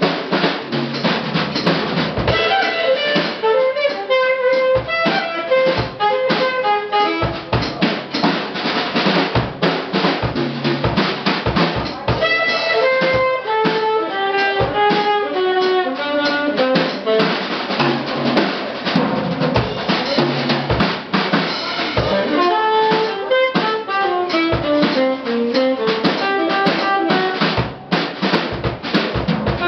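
Saxophone improvising fast runs of jazz notes over a drum kit playing snare, bass drum and cymbals. The drums play alone for about the first two seconds before the saxophone comes in, and a quick falling run comes near the end.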